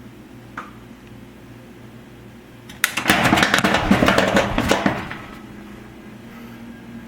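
A faint click about half a second in, then a loud crackling, buzzing electric-shock sound effect lasting about two seconds. It is a gag electrocution sound.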